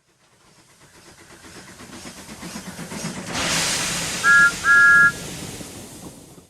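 Steam locomotive sound effect: chuffing that grows louder as it approaches, a rush of steam hiss about three seconds in, then two whistle blasts, a short one and a longer one, each two notes sounding together, before the chuffing fades away.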